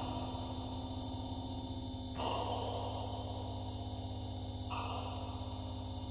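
Ambient music for a contemporary dance piece: a low, finely pulsing drone under sustained tones. Twice, about two and a half seconds apart, a sudden hissing swell comes in and fades slowly.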